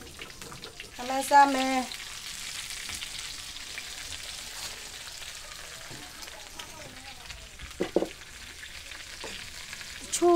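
Green vegetables sizzling as they are stir-fried in a wok over a wood fire, with a steady hiss. A short, loud pitched sound comes about a second in, and a sharp clink near the end.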